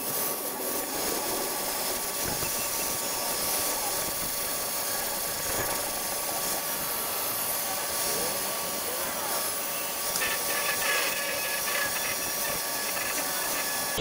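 Angle grinder running steadily with a constant whine, grinding down fresh tack welds on a steel tulip-bulb auger; it stops at the end.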